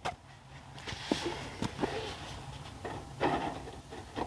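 Faint scattered knocks, clicks and a rustle from a length of aluminium gutter being handled and pushed into place against the building's trim.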